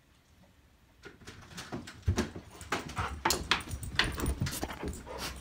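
A door opens about a second in, then dogs greet excitedly with whimpering amid a rapid run of clicks, knocks and scuffles.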